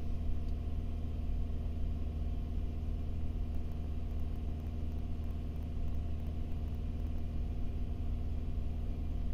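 Car engine running steadily at about 2,300 rpm, held on the gas above idle to load-test the alternator, heard from inside the cabin as an even, unchanging drone.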